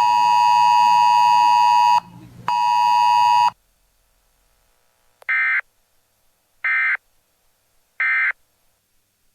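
A weather radio's buzzy alert tone sounds twice over the tail of the synthesized voice message. Then come three short chirps of EAS/SAME digital data, the end-of-message bursts that close a NOAA Weather Radio alert.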